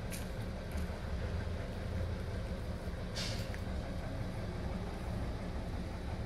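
Yamaha XT600E's air-cooled single-cylinder four-stroke engine idling steadily, with a short hiss about three seconds in.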